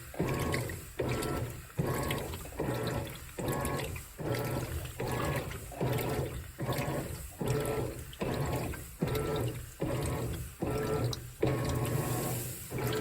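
Whirlpool WTW4815EW1 top-load washer's single-action agitator working the load in water. It gives an even run of strokes a little more than one a second, each a short mechanical whir with a swish of water.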